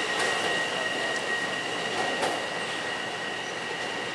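Long Island Rail Road M7 electric train rolling slowly into the station as it brakes, with a steady high squeal and a few light clicks from the wheels.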